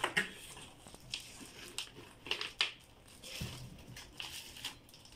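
Cardboard packing and paper documents being handled and pulled out of a printer box: rustling and scraping with a series of short sharp knocks, the loudest right at the start and about two and a half seconds in.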